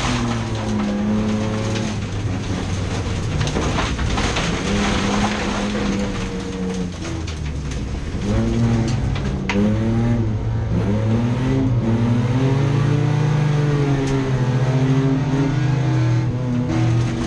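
Race car engines revving, their pitch climbing and dropping again and again as they accelerate and lift off; louder from about eight seconds in.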